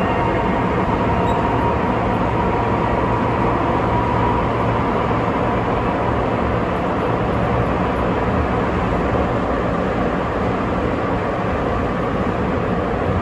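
Running noise inside a Sapporo Municipal Subway 8000-series car: a steady rumble of rubber tyres on the guideway at speed, with a faint whine from the Mitsubishi VVVF inverter drive that fades away in the first few seconds.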